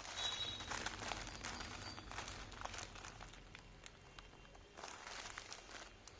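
Faint crinkling, rustling and light clicks of earbud packaging being handled and opened.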